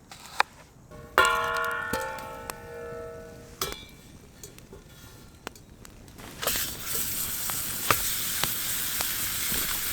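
A few sharp knocks, then a clear metallic ring that dies away over about two seconds. About six and a half seconds in, food starts sizzling as it hits a hot pan, and the sizzle carries on steadily with small pops.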